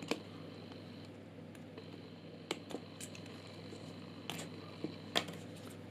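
Half a dozen small, sharp clicks and taps as needle-nose pliers and fingers handle a plastic solderless breadboard and its metal contact strips, over a steady low hum.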